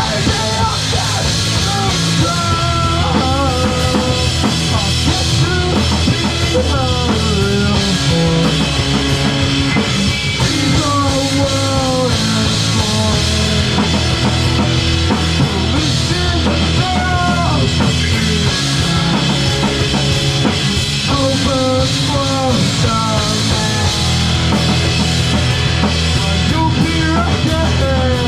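A live rock band playing loud, a drum kit driving underneath, with a melodic line bending up and down in pitch over the top.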